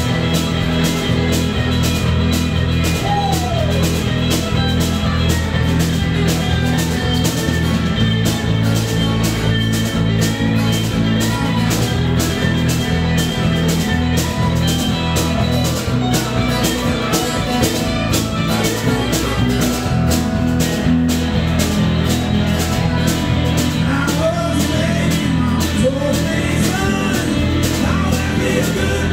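Live band playing loud electric music with a steady drum beat and bass, an electric guitar playing lead lines with string bends.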